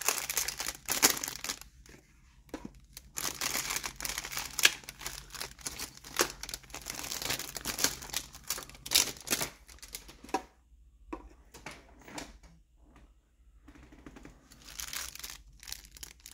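Clear plastic bags holding resin miniature parts crinkling in irregular bursts as hands tear them open and handle them, with a quieter stretch after about ten seconds.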